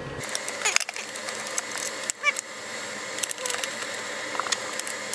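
Scattered clicks, taps and rustles of hands handling a plastic power-inverter case as it is closed up and its battery cable terminals are fastened.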